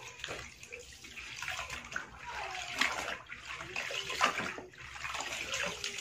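Laundry being washed by hand in a plastic basin of water: irregular sloshing and splashing as a dark garment is scrubbed and wrung out, water pouring back into the basin.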